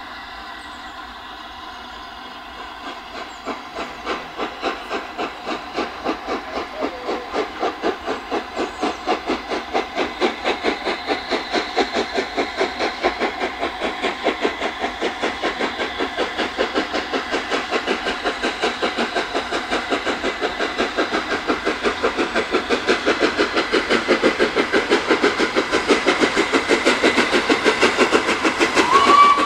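Flying Scotsman, a Gresley A3 three-cylinder steam locomotive, working a train with a steady chuff of exhaust beats and steam hiss. The beats start faint about three seconds in and grow steadily louder and a little quicker.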